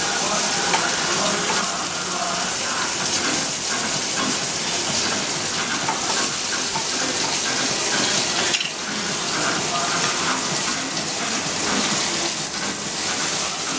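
Eggs and edamame sizzling in hot olive oil in a frying pan, a steady hiss that dips briefly about two-thirds of the way through.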